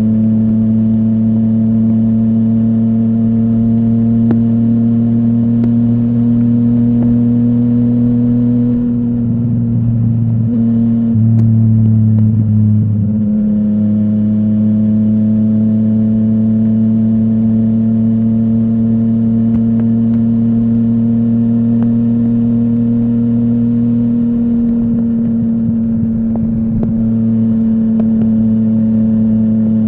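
Yamaha MT-09's inline three-cylinder engine running through a full Akrapovic exhaust at steady, nearly unchanging revs. About nine seconds in, the note breaks up for a few seconds, then settles back to a steady drone.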